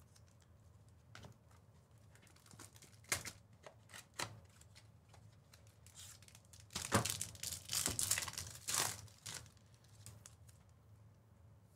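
Foil trading-card pack wrappers tearing and crinkling as packs are ripped open, in scattered short bursts with a louder run about two-thirds of the way through.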